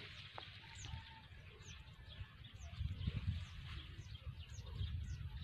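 Small birds giving thin, high, falling chirps about twice a second, with a low, uneven rumble underneath.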